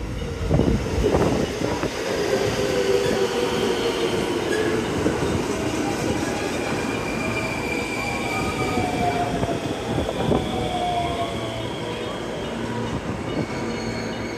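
Electric commuter train running in alongside the platform and slowing, with squealing tones and a falling whine as it brakes. A few sharp clacks near the start and again about ten seconds in, from the wheels passing rail joints.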